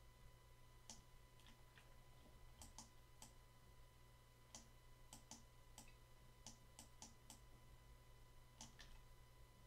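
Faint computer mouse clicks, fifteen or so at uneven intervals, over a steady low electrical hum.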